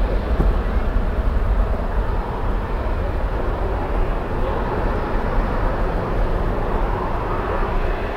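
Jet airliner engines rumbling as the plane passes, a loud steady noise that slowly eases.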